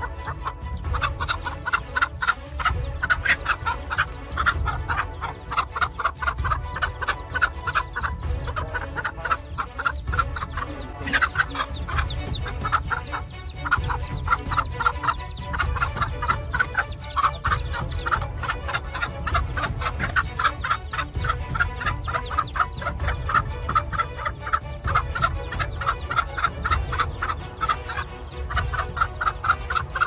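Domestic hen clucking rapidly and continuously, several clucks a second: the agitated alarm of a broody hen defending her chicks from a snake.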